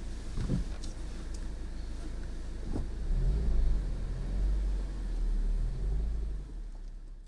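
Car driving: a low rumble that swells a few seconds in and fades out near the end.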